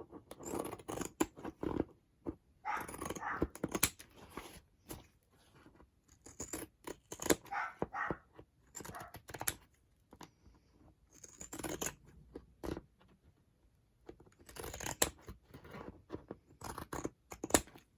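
Scissors cutting through tough faux leather: several runs of crisp snips and crunching cuts with short pauses between them.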